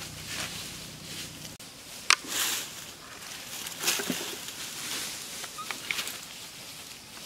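Scattered rustles and sharp clicks of long-tailed macaques moving about in dry leaf litter and on a fallen branch. The sharpest click comes about two seconds in, followed by a short rustling burst, and more clicks come later.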